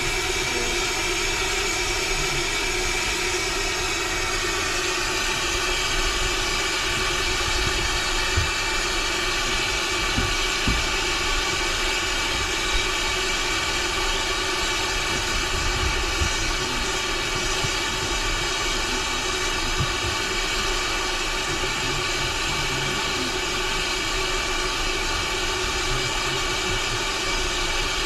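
Vehicle engine running steadily, its note shifting about four or five seconds in, with a few faint knocks.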